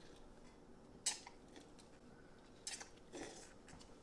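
Faint, sparse eating and food-handling sounds at a table: a few short clicks and crackles, about a second in and twice more near the end, over quiet room tone.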